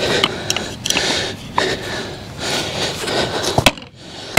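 Felling wedges being driven into the cut of a large dead ash tree: several sharp knocks, the loudest near the end, with stretches of rustling noise between them.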